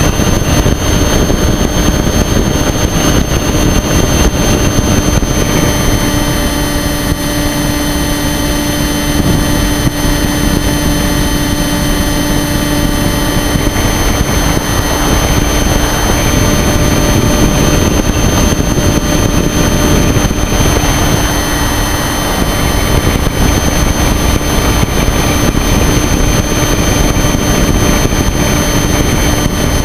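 Onboard sound of a radio-controlled model plane in flight: its motor and propeller running at a steady pitch, under a heavy rush of wind over the camera.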